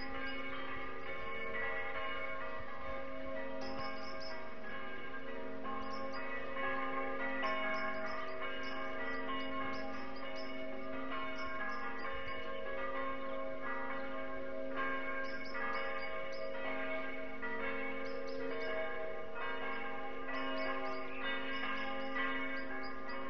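Several church bells ringing together, their strikes overlapping into a continuous peal.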